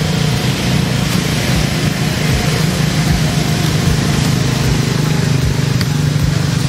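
A steady mechanical drone, like a motor running, with a low hum under a wide hiss.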